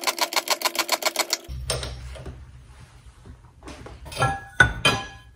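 Rapid, even ticking, about nine ticks a second with a ringing tone under it, as the Bridgeport mill's step pulley is turned by hand on its shaft in the press; it stops about a second and a half in. A few scattered light metal clinks and knocks follow.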